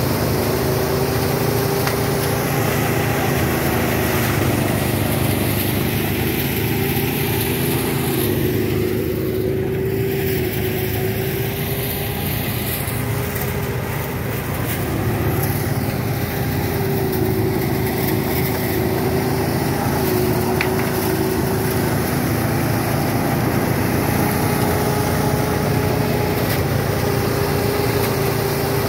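Rice-threshing machine running steadily, with a continuous engine hum whose pitch wavers slightly.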